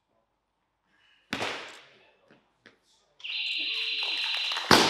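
Clean and jerk on a wooden lifting platform: a loud thud about a second in as the jerk is driven and the feet land, then a steady electronic down-signal beep for about a second and a half. Near the end the loaded barbell's bumper plates crash onto the platform.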